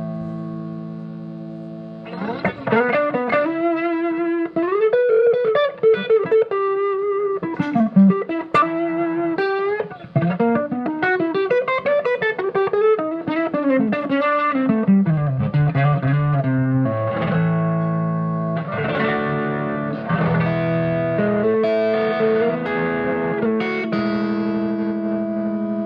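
J Craft Vintage Series Tele-style electric guitar played through an amp. A held chord fades out, then a single-note lead line with string bends and vibrato starts about two seconds in, and the second half moves into held chords and double-stops.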